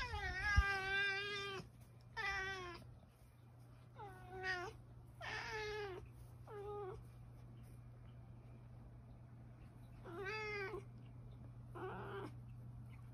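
An orange tabby cat meowing repeatedly, about seven separate meows, the first the longest, with short gaps and a longer pause in the middle. A steady low hum runs underneath.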